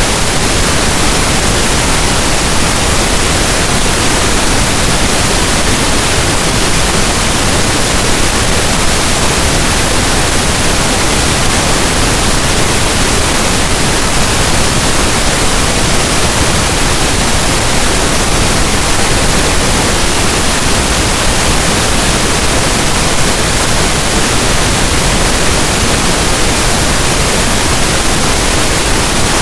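Steady, loud pink noise: an even hiss that does not change.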